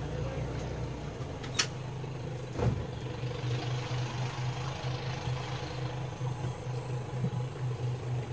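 A river tour boat's motor running steadily, a low pulsing hum, with a short click about a second and a half in and a thump near three seconds.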